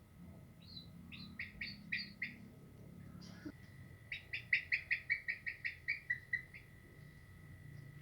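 A songbird singing two runs of short repeated chirps, the second run longer and quicker at about five notes a second, with a slight fall at its end.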